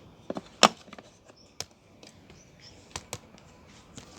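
Hard plastic parts of a vacuum cleaner's switch assembly clicking and knocking as they are handled and fitted back together. The sound is a handful of separate sharp taps, the loudest about two-thirds of a second in, with a quick pair of clicks about three seconds in.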